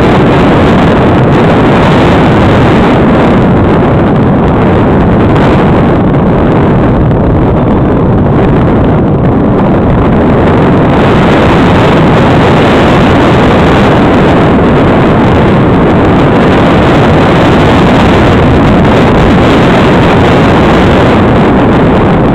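Loud, steady rush of air buffeting the microphone of an onboard camera riding on an unpowered fibreglass Fox RC slope-soaring glider in flight.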